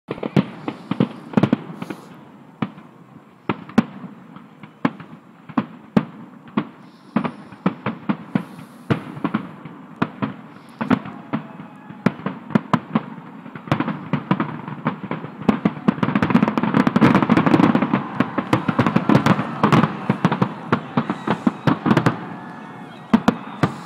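Fireworks going off: a long run of sharp bangs and crackles, several a second, that thickens into a dense, continuous barrage about two-thirds of the way through and thins out again near the end.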